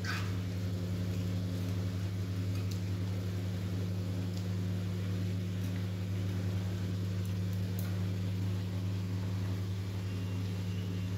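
A steady low electrical hum, like a fan or motor running, with a few faint ticks.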